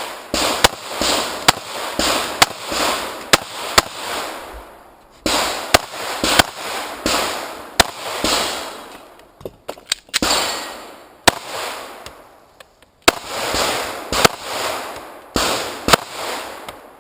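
Strings of rapid 9mm pistol shots from a Heckler & Koch VP9, mostly in quick pairs, each crack trailing off in a short echo. There are two brief lulls in the shooting, about five seconds in and again around twelve to thirteen seconds.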